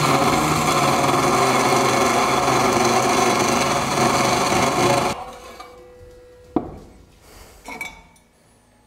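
Cold circular saw cutting through a black-steel profile: a loud, steady grinding with ringing tones as the blade is fed down through the steel. The cut ends about five seconds in, a fainter hum runs on for about a second and a half, and a single sharp click follows.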